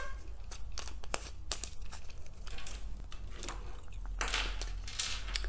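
Plastic rustling and crinkling with small scattered clicks as plastic toy fishing rods and clear plastic are handled, a little louder about four seconds in.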